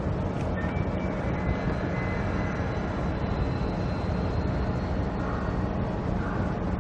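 Steady low rumbling noise, with faint thin high tones coming and going.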